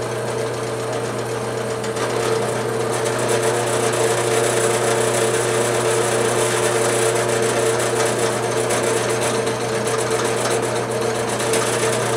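Drill press running a homemade milling spindle, its end mill cutting a 3/16-inch slot along a nylon block: a steady machine hum with the noise of the cut, a little louder from about two seconds in.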